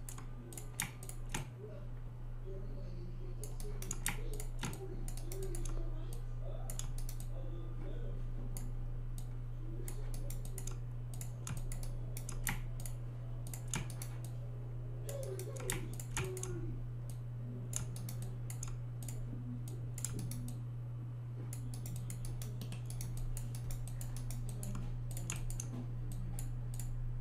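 Computer keyboard keys and mouse clicks tapping irregularly as vertices are selected and moved in Maya, over a steady low electrical hum.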